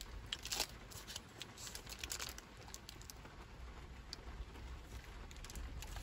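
Thin paper wrapper around a piece of food crinkling as it is handled, a run of small crackles, the loudest about half a second in.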